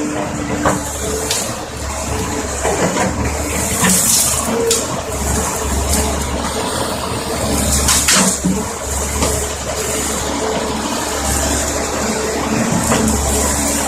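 CAT 320D tracked excavator working: its diesel engine and hydraulics run steadily with a loud rushing noise, broken by several sharp knocks and clanks.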